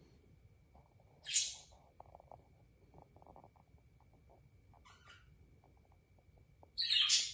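Budgerigars calling: two loud harsh chirps, one about a second in and one near the end, a fainter chirp around five seconds in, and soft rapid chattering clicks in between.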